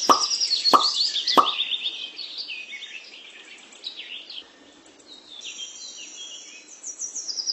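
Small birds chirping and trilling in quick repeated high notes, with three short plops in the first second and a half.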